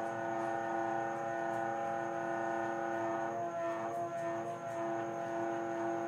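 Household water tank (caixa d'água) making a steady droning hum of several tones, wavering slightly in pitch. Several replacement float valves have not stopped it, and a builder called some of this noise normal.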